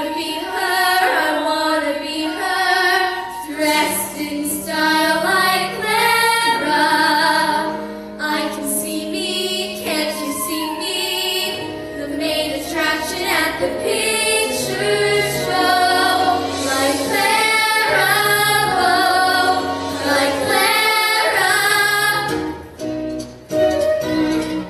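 Young female voices singing a musical-theatre song over instrumental accompaniment.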